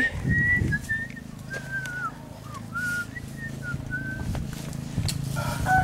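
Whistling: a run of about a dozen soft whistled notes wandering up and down in pitch, over a low steady hum. Near the end comes a short louder sound with several tones at once.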